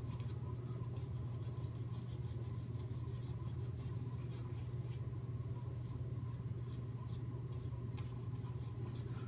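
Shaving brush scrubbing lather onto the face, a soft scratchy rubbing of bristles, over a steady low hum.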